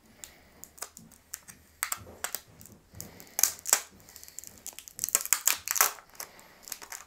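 Plastic packaging film on a new smartphone crinkling and crackling as it is handled and peeled off, with small sharp clicks, in two dense bursts partway through and near the end.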